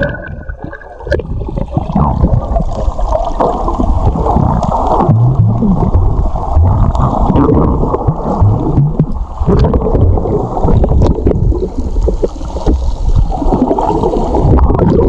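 Sea water sloshing and gurgling around a camera held in or under the water: a loud, muffled, continuous rumble with almost nothing in the high range.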